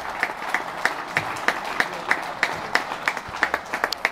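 Audience applauding, with sharp claps standing out at a steady pace of about three a second.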